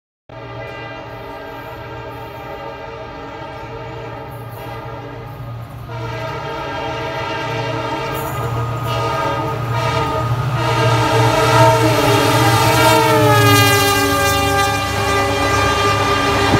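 An EMD diesel locomotive sounds a long multi-tone horn, held almost without a break as the train approaches and grows louder. Its pitch drops as the locomotive passes, over the low running of the engine and the rising clatter of the coaches.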